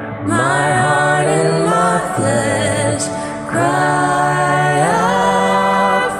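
Worship song sung over a backing track: a voice holds long, gliding notes in two long phrases over sustained accompaniment, the second phrase starting about halfway through.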